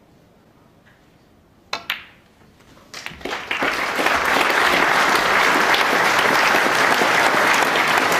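Sharp click of a snooker cue and balls about two seconds in, then a few more clicks. An audience starts applauding a second later for the potted black, and the applause holds steady.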